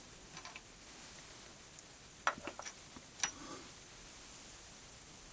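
A few light metallic clinks and taps as machined brass and aluminium parts are handled and set down on a steel machine table. The loudest comes about three seconds in, with a short high ring.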